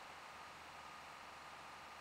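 ASUS ZenDrive U9M external DVD drive spinning a disc as it writes: a faint, steady whir with a thin steady whine.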